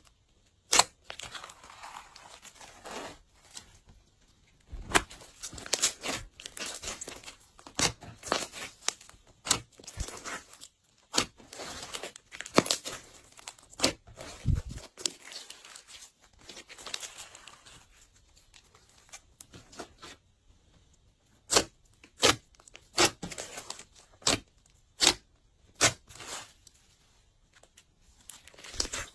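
Glossy slime being worked by hand: sticky crackling and tearing, then, about two-thirds of the way in, a steady run of sharp pops, roughly three every two seconds, as the slime is pressed and squeezed.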